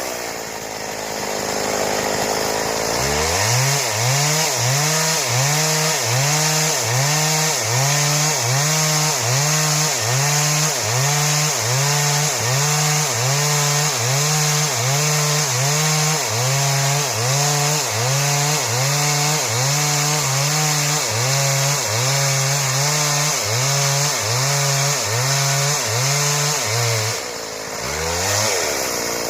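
Stihl two-stroke chainsaw cutting wood into boards, its engine note dipping and recovering about once a second as it works under load. It eases off briefly near the end, then picks up again.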